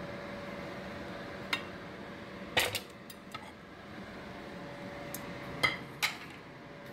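Stainless-steel pot lids and cookware being handled, clinking sharply against the pots several times. The loudest are a quick double clink about two and a half seconds in and two more around five and a half and six seconds in. A steady hum runs underneath.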